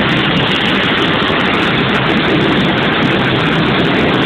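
Steady, loud engine noise that holds unchanged throughout, with no break or change in pitch.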